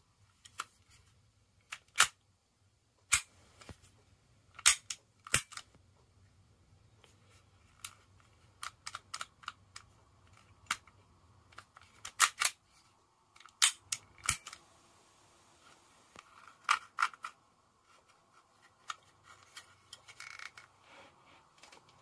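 Sharp mechanical clicks and clacks from a Sig Sauer P365 air pistol being handled, its slide and controls worked by hand. About twenty short clicks come at irregular intervals, some in quick pairs.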